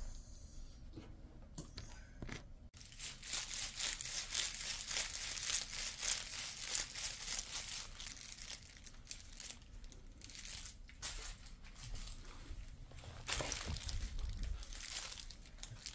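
Crinkling and rustling, like crinkly plastic being handled, starting about three seconds in, easing off near the middle and coming back louder near the end.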